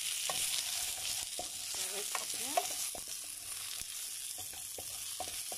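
Fried salmon cubes and chili flakes sizzling in oil in a frying pan, with scattered light knocks of a wooden spatula stirring them.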